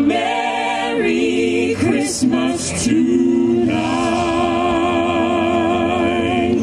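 A cappella group of men's and women's voices singing through microphones, moving through short sung phrases and then holding one long chord for the last few seconds.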